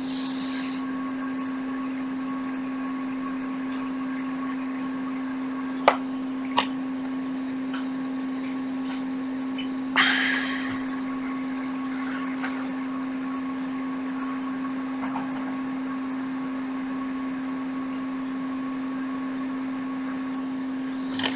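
Steady electrical hum of running workbench equipment, with two sharp clicks about six seconds in and a short hiss about ten seconds in.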